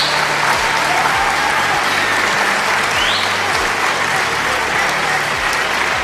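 Large audience applauding steadily.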